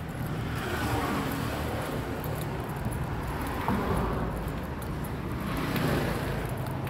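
Street traffic: a steady low rumble with cars swelling past a few times.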